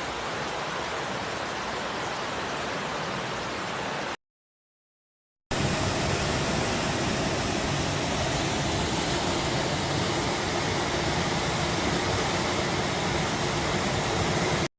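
Steady rushing of water. It cuts to silence about four seconds in, then a louder, fuller rush of water resumes a second later and runs on steadily.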